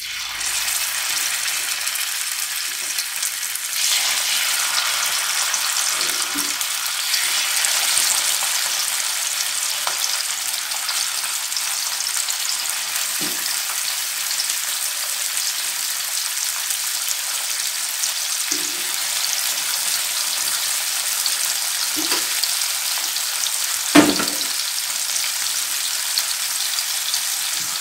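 Masala-coated whole fish shallow-frying in hot oil on a tawa: a steady, dense sizzle. A few short knocks sound over it, the loudest about four seconds before the end.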